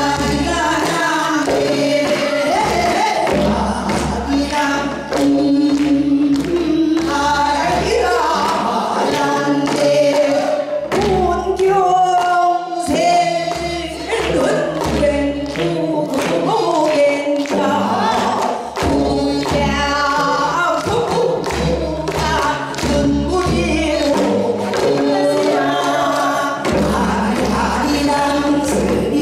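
A group of women singing a Korean folk song in traditional gugak voice into microphones, with wavering, ornamented vocal lines and some low thuds underneath.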